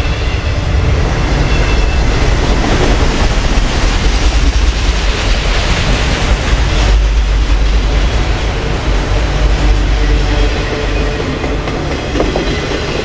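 Freight train of enclosed autorack cars rolling past close by, with a loud, steady rumble of steel wheels on the rails and the clickety-clack of wheels over the track.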